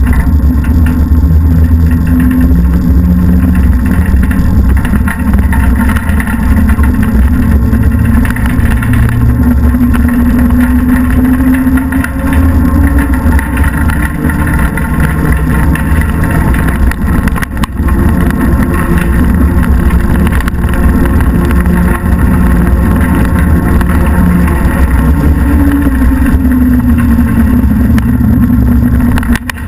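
Unpowered soapbox derby car coasting on asphalt: wind buffeting the onboard camera's microphone over the rumble of the wheels on the road, a steady loud low rumble with a faint hum that drifts in pitch.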